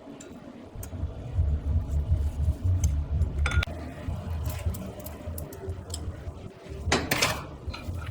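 Blacksmith's forging work on iron nails: a steady low rumble with a few scattered metallic clicks, and a louder rasping noise lasting about half a second near the end.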